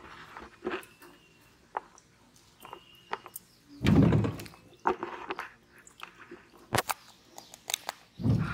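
Handling noises while baiting and casting from a wooden boat: small clicks and taps, a dull thump about four seconds in, and another thump near the end.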